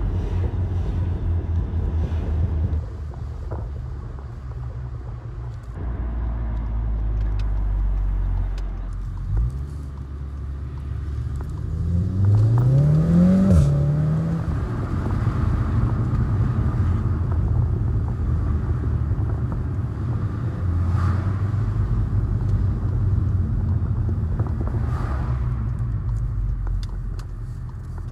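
Volkswagen Golf R's turbocharged four-cylinder engine and resonator-deleted exhaust heard from inside the cabin while driving, with a steady low drone. About twelve seconds in it revs up through a gear, the pitch rising, then a quick DSG upshift drops the pitch suddenly with a short sharp crack.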